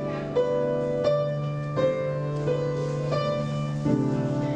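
Slow background piano music: single notes struck about every 0.7 s over a held low bass note.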